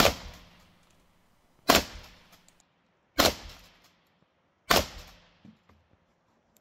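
Four shots from a Winchester 1897 pump-action shotgun, about one and a half seconds apart, each trailing off in an echo.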